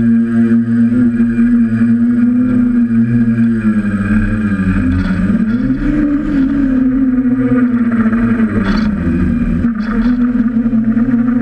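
DJI F550 hexacopter's six electric motors and propellers, heard from the camera on board: a steady buzzing hum that wavers up and down in pitch from about four seconds in as the craft manoeuvres, then settles near the end.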